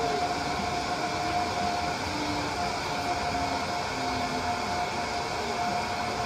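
Toy bubble machine running: its small fan motor gives a steady, even whine over a hiss of background noise.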